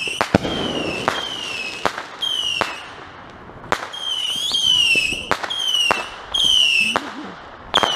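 Consumer fireworks firing whistle shots in quick succession, about one a second: each a sharp pop followed by a shrill whistle falling slightly in pitch.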